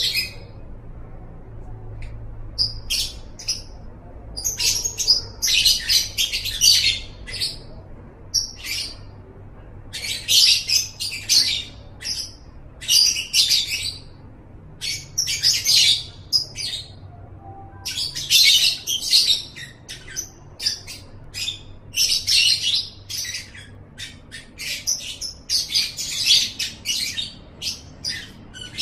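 Lovebird chattering in rapid, shrill bursts, each a second or so long and repeated with short pauses: the long chattering song that Indonesian bird keepers call 'ngekek'.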